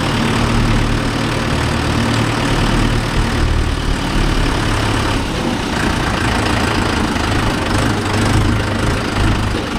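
Mahindra Yuvo Tech+ 585 4WD tractor's diesel engine running steadily.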